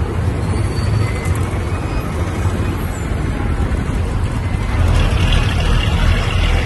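Engine rumble and road noise heard from aboard a moving bus in city traffic. The noise gets louder and hissier about five seconds in.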